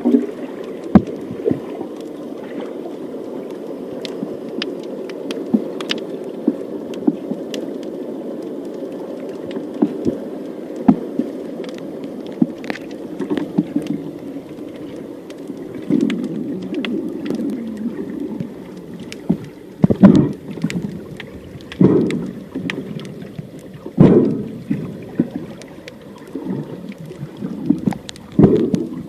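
Muffled underwater noise, as picked up by a camera in its housing, with scattered sharp clicks and several louder swelling surges of water in the second half.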